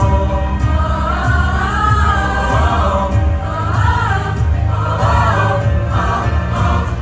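Mixed choir singing with instrumental accompaniment and a heavy bass line.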